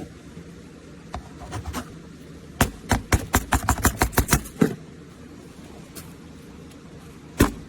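A rapid run of about a dozen sharp knocks, some six a second, lasting about two seconds, then one more loud knock near the end, as a sharp-edged object is tried out by striking it against something.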